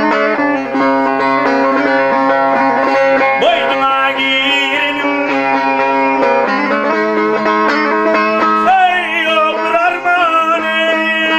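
Turkmen dutar, its two strings strummed in a fast, steady pattern, with a man singing over it in traditional bagşy style; his voice comes in a few seconds in with sliding pitches.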